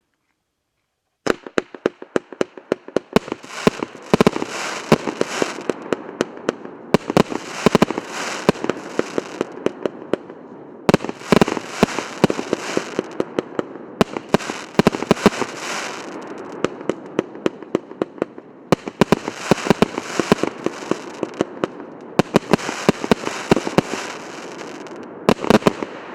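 A 49-shot, 1.2-inch firework cake (battery) firing: fast runs of sharp shots with a constant rushing noise between them, coming in several surges with short lulls, starting about a second in.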